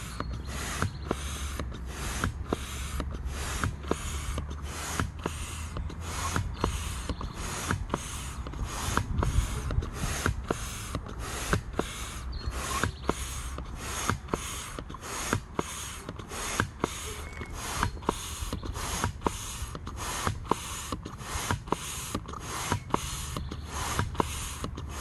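Manual air pump inflating a chamber of an Intex Excursion 5 vinyl boat: a quick, even rhythm of air puffs, a little over two a second, as the tube is topped up toward the mark on its inflation gauge.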